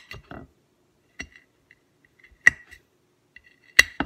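Kitchen knife cutting chili peppers on a ceramic plate: about five sharp clicks of the blade tip striking the porcelain, irregularly spaced, each with a brief ring.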